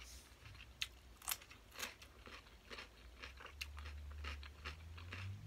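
A person chewing a mouthful of yum woon sen (spicy glass-noodle salad), with crunchy bites and sharp wet mouth clicks at uneven intervals. A low hum comes in during the last two seconds.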